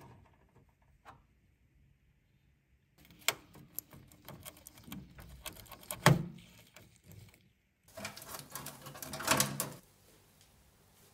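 Hands working on a dirty desktop computer's parts: two spells of dense clicking, tapping and scraping, with a sharp knock about six seconds in, separated by a short pause.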